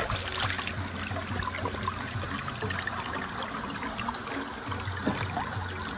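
Shallow river water trickling and flowing steadily.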